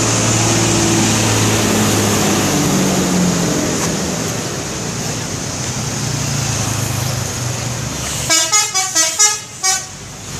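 Bus telolet horn, a multi-tone musical horn, rattling off a quick run of about six short, loud notes that step up and down in pitch near the end. Before it, steady low engine noise.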